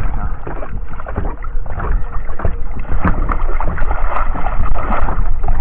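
Water sloshing and splashing around a person wading in shallow water, with a steady low rumble of wind on the microphone.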